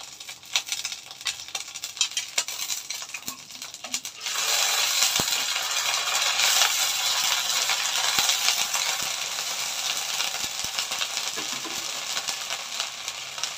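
Ginger-garlic paste and whole panch phoron frying in hot mustard oil: first scattered crackling and popping, then about four seconds in the pan breaks into a loud, steady sizzle that eases slightly near the end.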